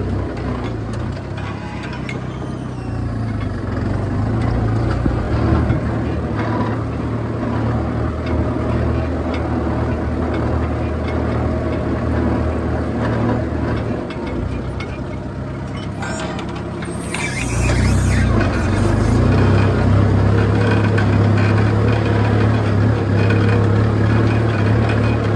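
Kubota M6240 tractor's four-cylinder diesel engine running steadily under load while pulling a disc plough through dry soil. About two-thirds of the way through a brief hiss sounds and the engine gets louder.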